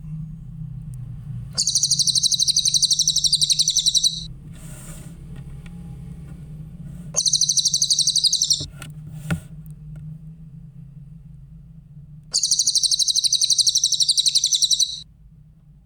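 Cililin bird singing: three loud bouts of a fast, high, evenly pulsed trill, each lasting about one and a half to two and a half seconds, over a steady low hum.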